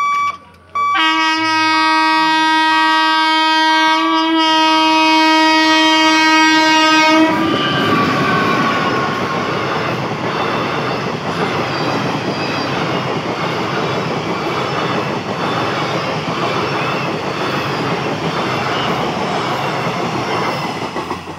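WAP-4 electric locomotive's horn sounding one long blast for about six seconds as the express approaches at speed, its pitch dropping as the locomotive passes. Then the passenger coaches rush past with a rhythmic clickety-clack of wheels over the rail joints, fading as the last coach clears near the end.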